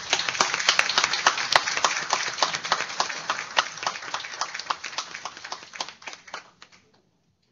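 Audience applauding, a dense patter of many hands clapping that thins out and dies away about seven seconds in.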